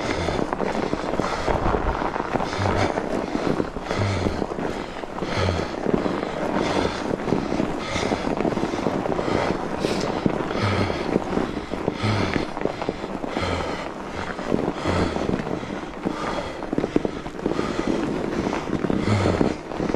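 Fat bike tyres crunching steadily over packed, wet snow, with the rider's heavy rhythmic breathing about every second and a half as he labours to pedal.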